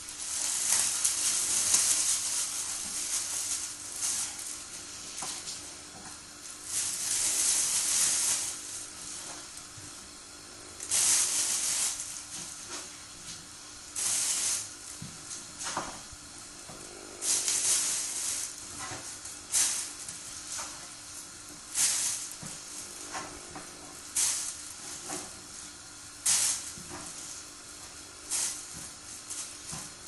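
Water hissing and splashing inside the drum of a Samsung WW80J5555 front-loading washing machine on a delicates wash, in repeated bursts. Two long bursts come early on, then shorter splashes follow about every two seconds.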